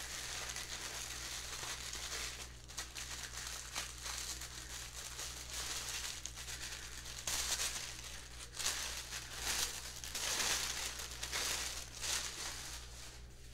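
Paper gift wrapping tied with twine being unwrapped by hand: irregular crinkling and tearing rustles, louder in spells over the second half.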